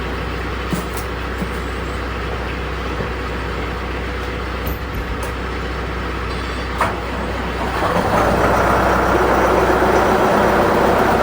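Vehicle engine running steadily, then throttled up and louder from about eight seconds in.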